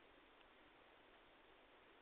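Near silence: faint steady background hiss, with one tiny tick about half a second in.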